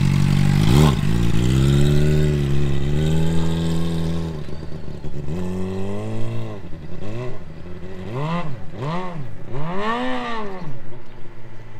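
Sport motorcycle engine running loudly as it pulls away, its note steady for the first few seconds, then fading. From about seven seconds in, the engine pitch rises and falls again and again as the throttle is opened and closed.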